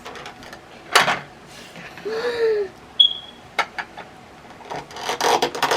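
Small plastic doll parts and toy furniture being handled and fitted together: a sharp click about a second in, another about halfway, and light rustling near the end, with a short hummed "hmm" from the child in between.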